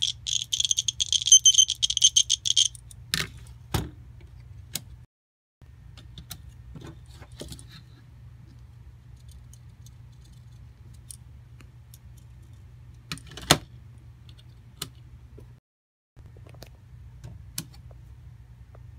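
Plastic Snap Circuits kit package shaken, its snap parts rattling rapidly for a couple of seconds, then scattered sharp clicks as snap pieces are handled and snapped onto the plastic base grid, over a low steady hum.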